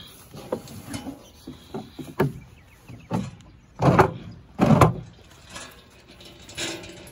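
Wooden dresser being handled: a run of light wooden knocks, then two heavy thuds about a second apart around the middle.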